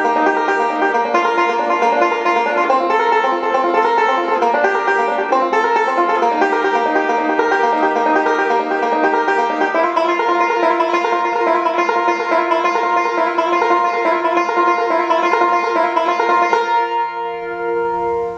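Five-string banjo, capoed at the third fret, played in fast continuous picking rolls. The playing stops about 17 seconds in and the last notes are left ringing.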